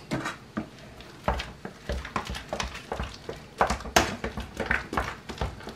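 Metal potato masher knocking and scraping against a stainless steel pot while working salt into mashed potato filling: an irregular run of short knocks, about two or three a second, with scraping between them.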